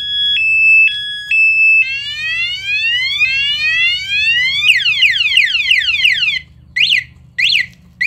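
Aftermarket motorcycle anti-theft alarm siren going off after the bike is touched, cycling through its tones: a two-tone warble, then repeated rising whoops from about two seconds in, quick falling sweeps from about five seconds in, and short separate chirps near the end.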